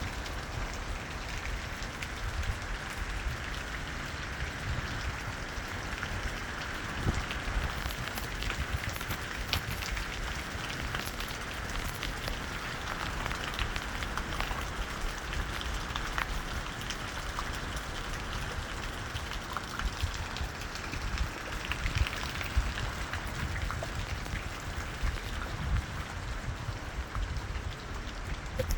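Steady heavy rain falling and pattering on surfaces, with many separate drop hits ticking through the hiss.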